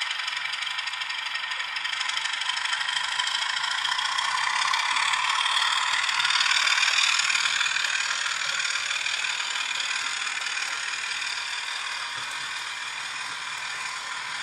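Model Class 24 diesel's DCC sound decoder playing its Sulzer engine thrashing under power through a small speaker, thin and without bass. Over it is the clatter of the model's wheels and parcels vans running on the track. It grows loudest about six to seven seconds in as the train passes close, then fades.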